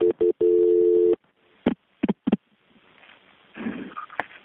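Telephone line tones as a 911 dispatcher transfers the call: a few short stuttered beeps of a two-tone dial tone, then the steady dial tone for under a second, followed by three short dialing clicks and faint line hiss.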